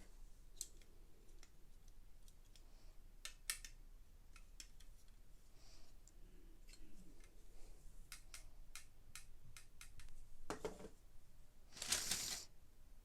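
Plastic Lego pieces clicking and snapping together, a scatter of sharp separate clicks, followed near the end by two short rustling bursts.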